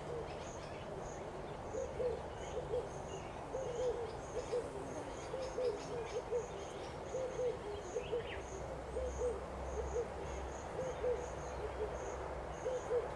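An owl hooting: short low hoots, many in pairs, repeated irregularly, with a faint high insect ticking behind.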